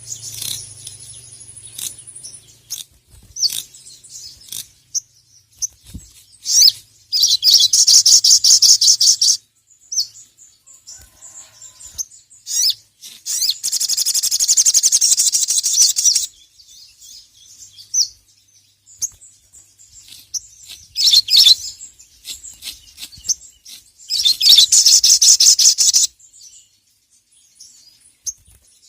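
Brown-throated sunbird (sogok ontong) singing: three long bursts of fast, high, rattling repeated notes, each two to three seconds long, with short sharp chirps between them.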